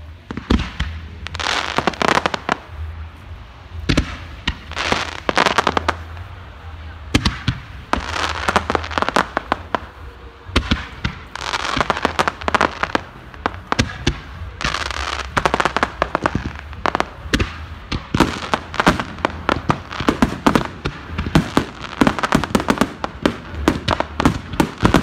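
Aerial firework display going off overhead: a close, near-continuous run of sharp bangs and crackles with stretches of hiss, growing denser and faster in the second half.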